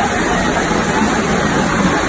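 Floodwater rushing across a road after heavy rain: a loud, steady rush of water.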